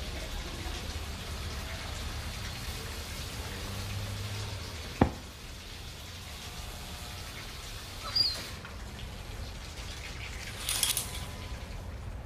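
Steady low hum of room ambience, broken by a single sharp knock about five seconds in, a short squeak about eight seconds in, and a brief rattling scrape a second before the end.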